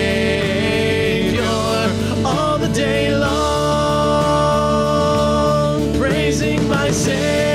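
Praise band playing a hymn with voices singing, including one long held note in the middle.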